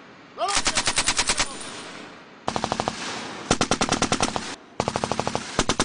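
M240 belt-fed 7.62 mm machine gun firing several short bursts of about ten rounds a second, each burst trailing off in a fading echo.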